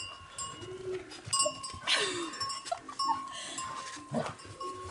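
Bells on cows ringing on and off as the cows move about, with a few short calls in between, one falling in pitch about two seconds in.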